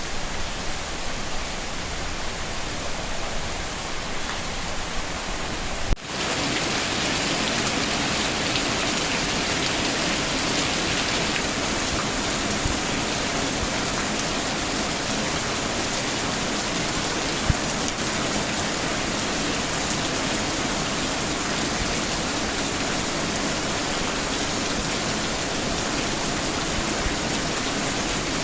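Steady rain falling, a continuous hiss. About six seconds in there is a sharp click, and the rain abruptly becomes louder and brighter, then holds steady.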